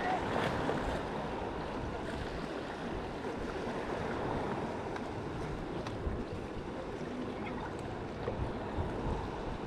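Steady wash of ocean surf against a rocky shore, with wind buffeting the microphone.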